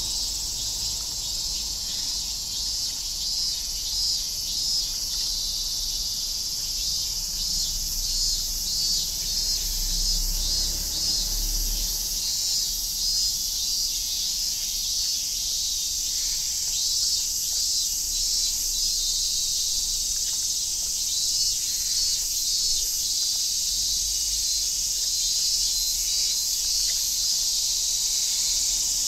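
A dense, steady chorus of insects, high-pitched, with a fast pulsing shimmer.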